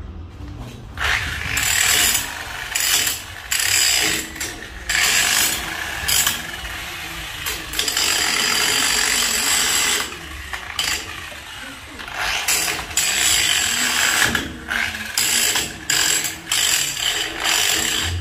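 Handheld cordless power tool fastening a metal window grill to the wall. It runs in repeated short bursts with a rattling, ratchet-like sound, starting about a second in, with one longer run around the middle.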